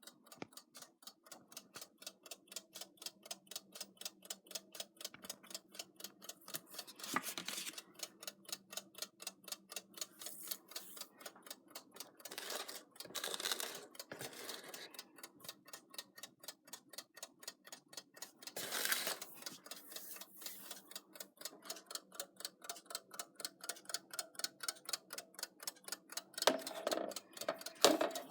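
Vintage 1950s Gilbert Reveille 40-hour wind-up alarm clock ticking steadily, about five ticks a second. A few brief louder noises break in now and then.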